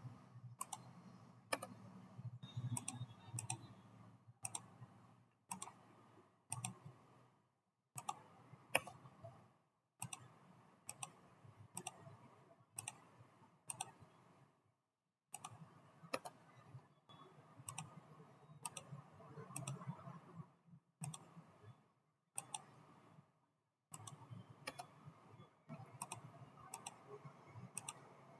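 Faint clicks of a computer mouse and keyboard, single and in quick pairs, at irregular intervals of about one to two a second over a low hum.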